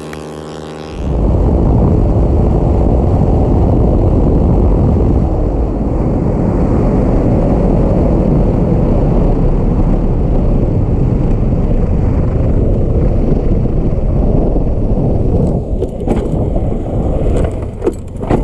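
A motorcycle engine running for about a second, then an abrupt change to loud, dense wind buffeting on the microphone of a motorcycle at speed, which buries the engine. The rushing breaks up and falters near the end.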